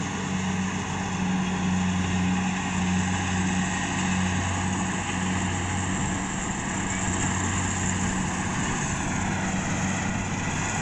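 Kubota combine harvester running steadily as it cuts and threshes rice, a constant low engine hum under a broad mechanical noise.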